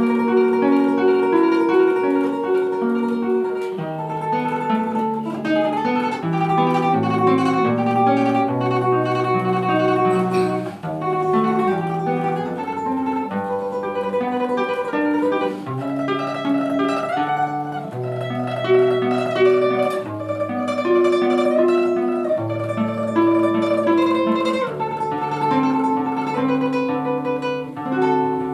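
Solo classical guitar playing a fast tremolo melody over a moving bass line.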